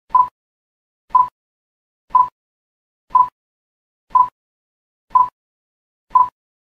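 Countdown timer sound effect: seven short, identical beeps at one steady pitch, one each second.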